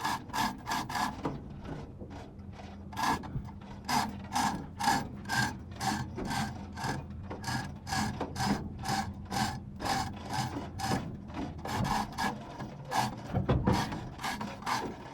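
Ratchet being worked in steady strokes, about two to three clicks a second, while the gearbox is lowered from the clutch housing.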